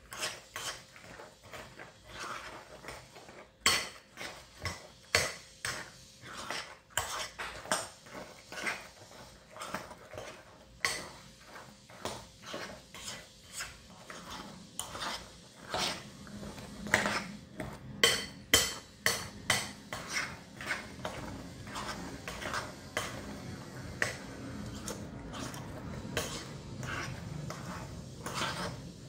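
A spoon clinking and scraping against a glass bowl as crushed Oreo cookies are stirred into a thick, creamy ice cream base. The clinks come irregularly, several a second. They turn into softer, steadier scraping over the last several seconds.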